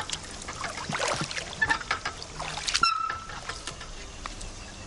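Pool water splashing and sloshing in short irregular bursts as a person moves in the water, dying down after about three seconds.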